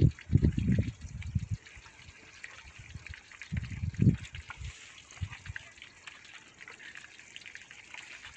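Hands squishing fish pieces through a wet yogurt-and-spice marinade in a steel bowl, in irregular bursts that are strongest in the first second and a half and again about four seconds in.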